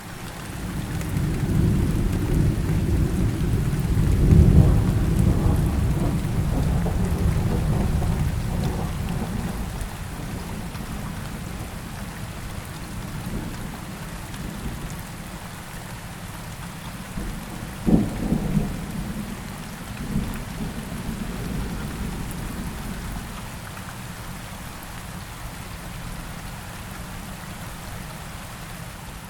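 Steady rainfall with thunder: a long low rumble swells in the first few seconds, peaks, and rolls away slowly, then a sharper thunderclap comes about two-thirds of the way through, followed by a shorter rumble.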